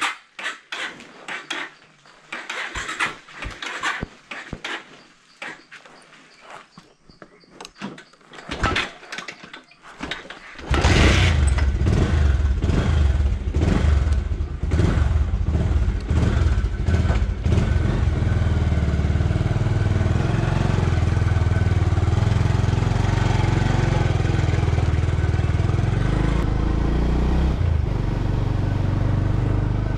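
A series of clicks and knocks, then about ten seconds in a motorcycle engine starts suddenly and runs steadily as the bike is ridden away.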